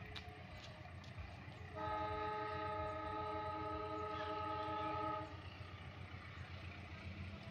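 The air horn of diesel locomotive CC204 06 01 sounds one steady multi-note blast, about three and a half seconds long, beginning about two seconds in, over a low rumble.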